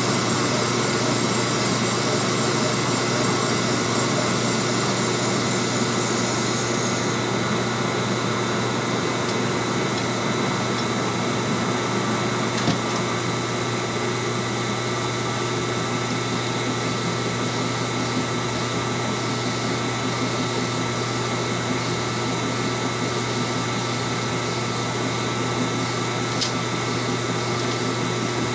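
Monarch engine lathe running steadily, its spindle turning a turbocharger housing in the chuck: a steady machine hum with a couple of faint ticks.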